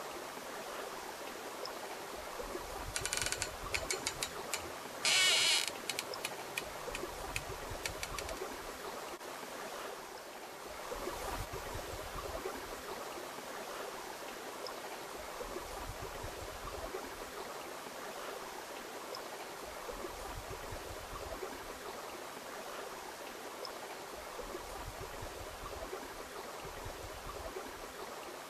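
Steady outdoor rushing noise, with a burst of sharp clicks and rattles about three to six seconds in.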